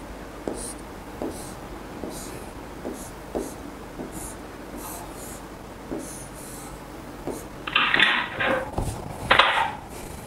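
Stylus drawing on an interactive display panel: soft taps roughly once a second with light scratching of pen strokes. Near the end come two louder bursts of scratchy noise, the first about a second long.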